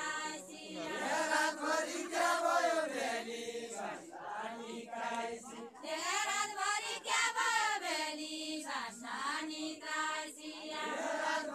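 A group of villagers singing a Deuda folk song together without instruments, in long, drawn-out chanted phrases broken by short pauses.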